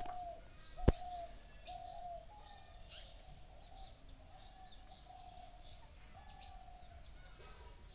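Birds calling outdoors: a run of short whistled notes, repeated about every half second, mixed with quick high chirps. A single sharp click comes about a second in.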